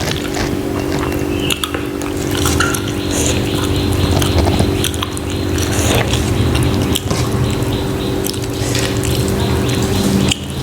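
Close-up wet eating sounds: rice mixed with egg curry being squished and chewed, with many small clicks and smacks. A steady low hum runs underneath and stops shortly before the end.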